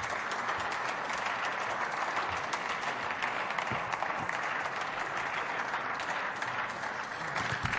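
Applause in a parliamentary plenary chamber: many people clapping steadily together.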